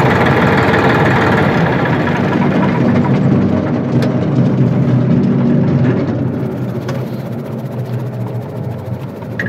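Massey Ferguson 2605 tractor's engine running steadily, then growing quieter about six seconds in.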